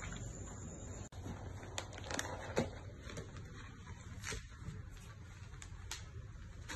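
Rustling of a silk saree being handled and spread out by hand, with a few soft sharp clicks over a low steady hum.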